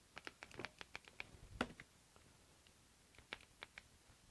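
Near silence with faint scattered clicks and taps, a quick cluster in the first second and a half and a few more near the end. The cordless impact wrench is not running: its 2 Ah battery has cut out mid-job.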